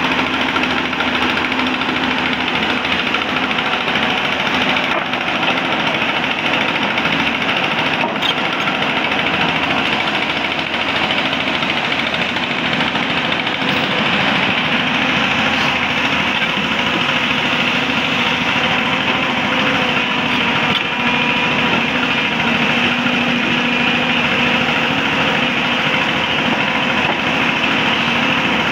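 Hyundai 220-9S crawler excavator's diesel engine running steadily while the machine swings and digs with its bucket.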